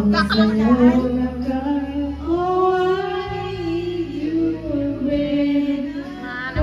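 A woman singing karaoke into a microphone over a backing track, with long held notes.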